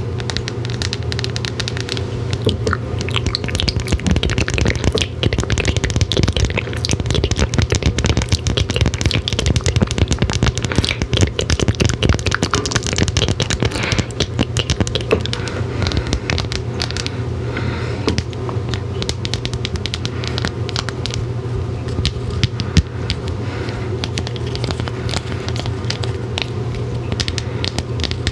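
Long fingernails tapping and scratching on a wrapped candy bar's crinkly wrapper close to the microphone: a dense, continuous run of small clicks and scrapes.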